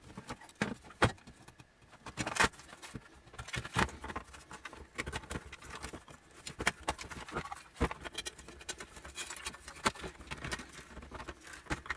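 Irregular clicks, taps and knocks of hands handling and fitting oscilloscope parts: the LCD assembly, sheet-metal chassis plates and wire connectors being set in place.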